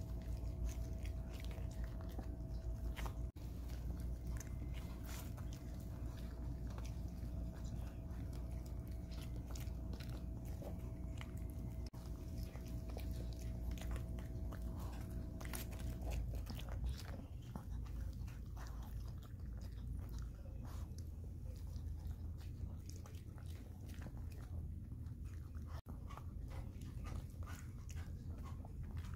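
A Maltese dog chewing and crunching pieces of boiled cabbage and cucumber from a bowl, with many quick crunches and mouth clicks. A steady low hum in the background stops about halfway through.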